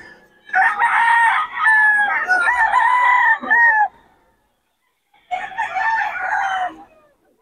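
Gamecock roosters crowing: one long crow about half a second in, and a shorter crow about five seconds in.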